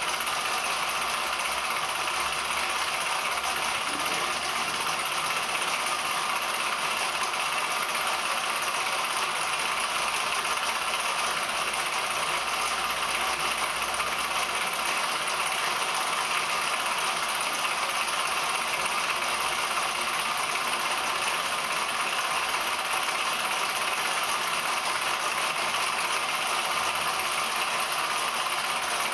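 Clydon 13/4 toy live-steam engine running steadily under steam, with an even, continuous mechanical running sound.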